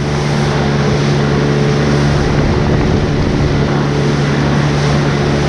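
Motorboat engine running steadily under way, a constant low hum with a steady hiss of rushing water and wind over it.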